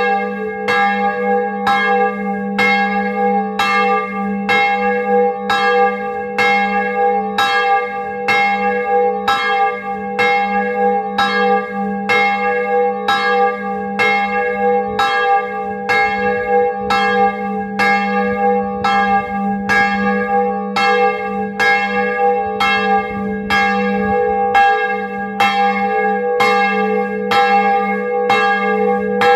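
Single bronze church bell, cast in 1658 and tuned to G#3, swinging and ringing at close range in its wooden belfry frame. Its clapper strikes in a steady run a little more than once a second, and each stroke rings on under the next.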